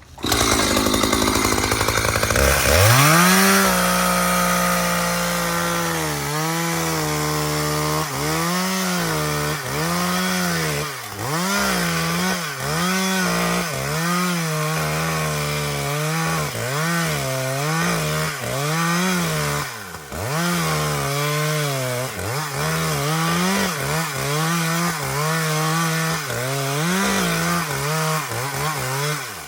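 Chainsaw cutting through a downed pine log that is under tension. It is run up to full throttle at the start, then holds under load while its pitch keeps sagging and recovering as the chain bites, with a couple of brief drops in revs. This is a plunge cut: the bar is driven straight through to cut the bottom out.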